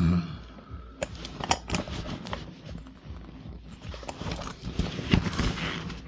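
Irregular clicking, rattling and scraping of steel handcuffs and their chain as the cuffed hands work, with sharp knocks from handling the gear. A loud thump comes right at the start.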